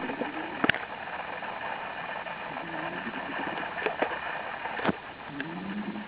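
Ragdoll cat snoring in its sleep: short low snores about two and a half seconds in and again near the end, over a steady hiss, with a few sharp clicks.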